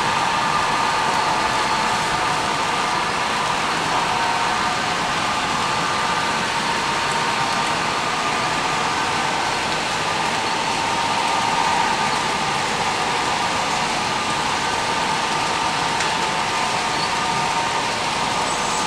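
Model freight train rolling steadily past on layout track: an even rolling hiss from the cars' wheels on the rails, with faint steady whining tones over it.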